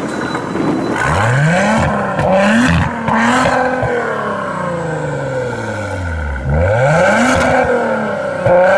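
A car engine revving hard several times, its pitch climbing and dropping back, with a few quick blips and one long, slow fall in revs.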